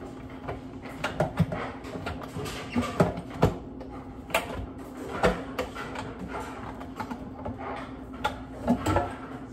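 Irregular plastic clicks and knocks of a Ninja Professional blender's stacked blade assembly being handled and fitted into its plastic pitcher.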